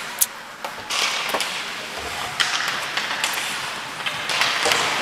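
Ice hockey play: skate blades scraping and carving on the ice, broken by several sharp clacks of sticks and puck, the loudest about a quarter-second in.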